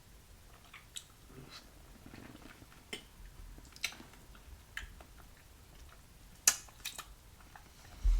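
Close-up chewing of a juicy fresh peach: scattered wet mouth clicks and smacks, with a couple of sharper clicks and a low thump near the end.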